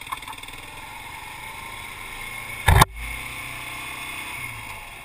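Motorcycle riding noise heard from a helmet-mounted camera: the engine running steadily under wind noise. A single sharp, loud knock cuts in briefly near the middle.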